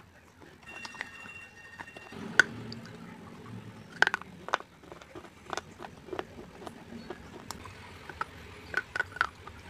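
Close-miked crunching and chewing of pieces of a baked-clay gullak: sharp, irregular snaps and crackles as the clay breaks between the teeth, with wetter chewing between them. The loudest snap comes about two and a half seconds in, with another cluster about four seconds in.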